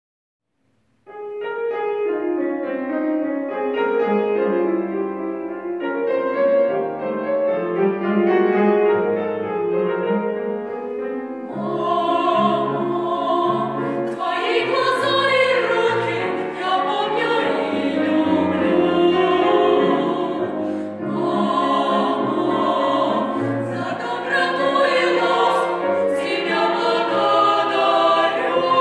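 Piano introduction, then a vocal ensemble starts singing with piano accompaniment about eleven seconds in.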